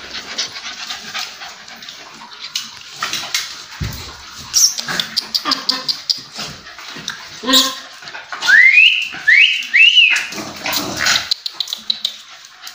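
Pet dogs playing and mouthing at a hand, with scuffling and sharp clicks throughout. About eight and a half seconds in, a dog gives three short, high rising whines.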